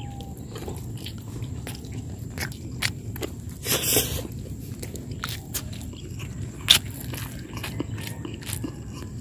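Someone eating rice and adobo by hand, close to the microphone: chewing with irregular small clicks over a steady low rumble, and a louder rustle about four seconds in.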